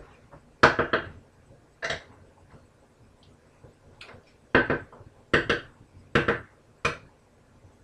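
Metal cookware clattering: a utensil knocking and scraping against a frying pan on the stove in about eight short, sharp bursts.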